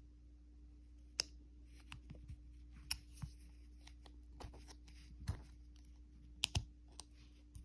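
Scattered small metallic clicks and ticks, about seven in all, from a retaining clip being worked off the back of a padlock.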